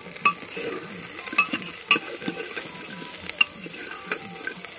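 Dried buffalo meat (sukuti) and onions sizzling as they fry in a pan, stirred with a metal spoon that clinks against the pan several times.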